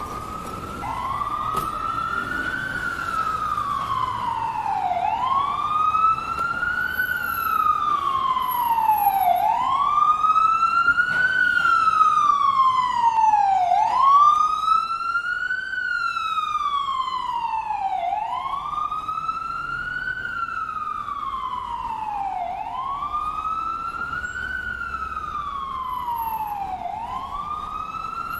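Ambulance siren sounding a slow wail: its pitch climbs and falls back about once every four seconds. It grows louder toward the middle, then eases off a little.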